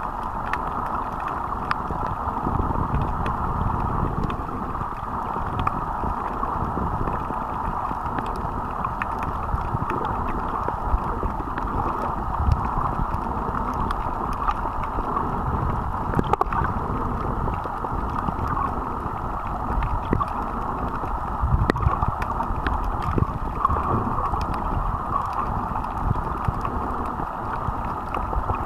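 Underwater noise picked up by a waterproof camera below the surface: a steady muffled water rush with irregular low thumps and scattered faint clicks.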